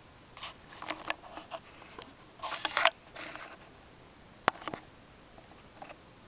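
Newspaper coupon inserts being handled, paper rustling in several short bursts, followed by a few sharp clicks in the second half.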